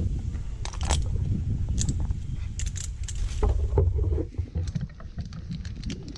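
Low rumble of wind on the microphone, with scattered sharp clicks and rustles. The rumble drops about four seconds in, leaving quicker, lighter clicks.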